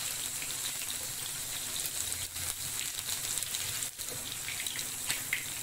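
Sea bream fillets sizzling steadily in olive oil in a frying pan with fresh thyme over low heat, the skin crisping. There is one sharp click about four seconds in.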